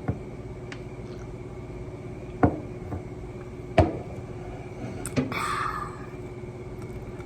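Close-miked eating sounds of chicken tenders and fries: four sharp crunchy snaps over a second apart, then a short crackling crunch past the middle, over a steady low hum.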